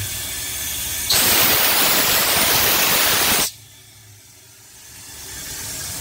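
Live steam from a coal-fired fire-tube boiler blasting out of its half-inch engine-outlet valve, a loud hiss that starts abruptly, lasts about two and a half seconds and cuts off suddenly as the valve is shut. The boiler's steam blower hisses and hums steadily underneath; it dips after the blast and then comes back.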